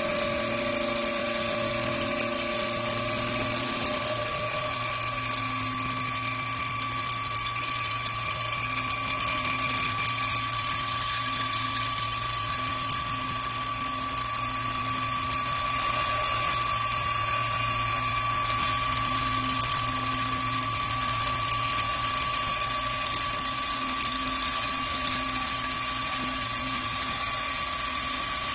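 CK-1530-S CNC woodworking lathe running: a steady high-pitched machine whine. A lower tone drops out about four seconds in.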